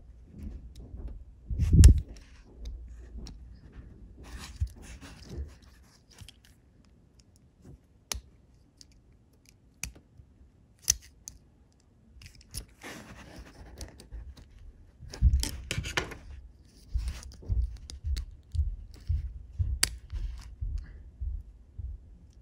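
Small flathead screwdriver prying and scraping around the plastic gearbox housing of a Life-Like pancake motor, with scattered sharp plastic clicks and low handling bumps. There is a loud bump about two seconds in, and a run of bumps in the second half.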